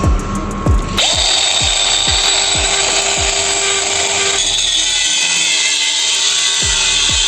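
A mini angle grinder switches on about a second in and runs with a steady high-pitched whine; its sound changes partway through, about four seconds in. A music track with a steady beat plays underneath.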